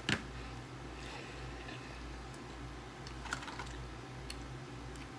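Close-up eating sounds of hot chicken wings: scattered sharp clicks and crackles of chewing and of a wing being picked from an aluminium foil pan. The loudest is one sharp click right at the start, with a small cluster of clicks a little past the middle, over a steady low hum.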